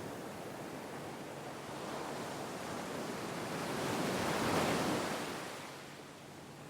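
Sea waves washing on the shore: a steady surf that swells into one breaking wave about four seconds in and then ebbs away.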